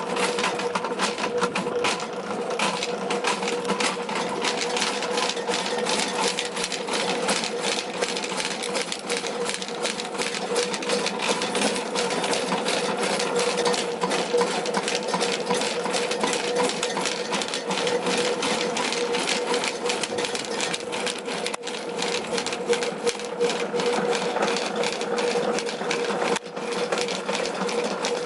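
Electric drain-cleaning (sewer) machine running steadily on the main line: a constant motor hum with a fast, continuous rattle.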